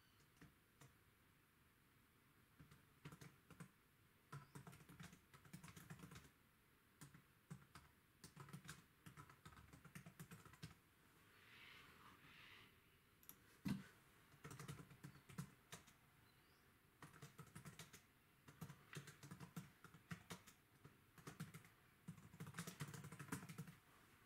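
Faint runs of quick, light clicks and taps, each run lasting a second or so with short pauses between, and one sharper knock about halfway through.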